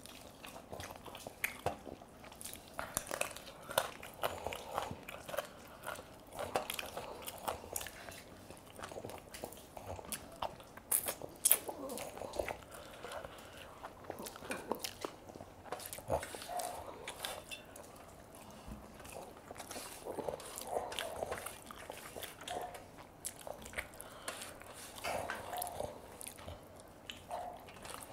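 Two people eating rice and chicken curry with their hands: close chewing and biting, with irregular wet smacks and clicks, and fingers scraping rice across steel plates.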